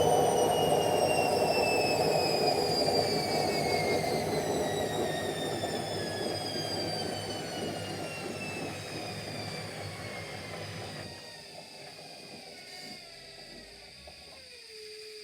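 Washing machine spin cycle winding down: the motor's whine falls steadily in pitch as the drum slows, and the rumble fades, dropping away about eleven seconds in.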